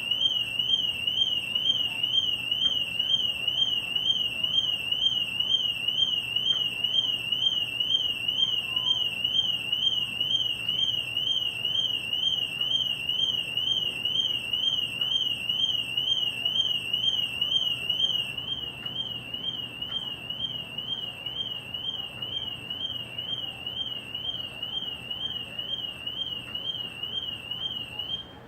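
Car alarm siren going off: a single high tone warbling rapidly up and down, about two and a half warbles a second. It drops a little in loudness about eighteen seconds in and cuts off near the end.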